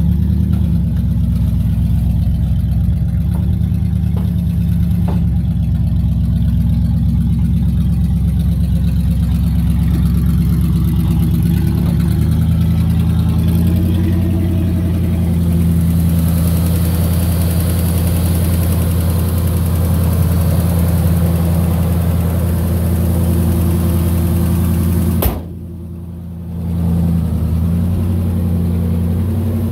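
Dodge Power Ram pickup's engine running steadily at idle, its tone shifting slightly about twelve seconds in. Near the end a sharp click is followed by a brief dip in the sound.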